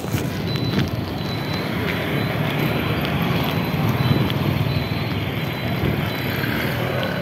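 Street traffic noise: small motorcycles running past on the road, a steady engine and tyre rumble that swells a little midway.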